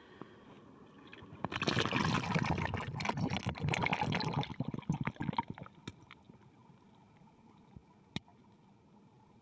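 Water bubbling and churning, heard underwater. It swells to a loud crackling rush for about three seconds, then dies down to a faint hiss with scattered clicks.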